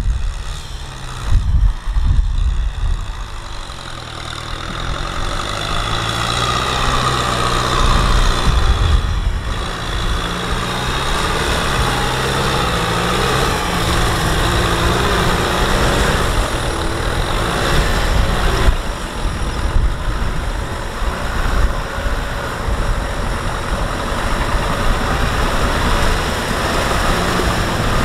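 Kubota M6040SU tractor's four-cylinder diesel engine running under load while working through deep mud, its engine note rising and falling.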